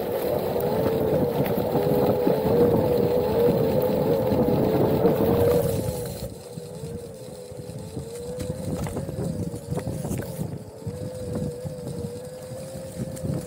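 Onewheel electric board's hub motor whining with a steady tone that wavers slightly in pitch with speed, over rough rolling noise. About six seconds in it all gets quieter, while the whine carries on.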